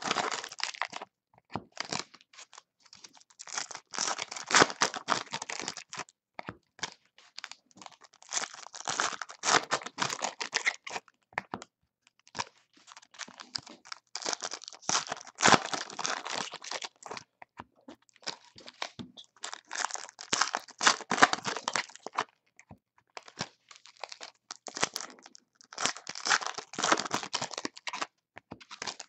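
Foil trading-card packs being torn open and crinkled by hand one after another: repeated bursts of wrapper tearing and crackling, each lasting a second or a few, every few seconds.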